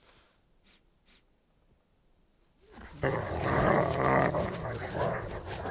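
A Bigfoot creature's loud, rough growling roar that breaks in suddenly about three seconds in, after near silence with faint rustling.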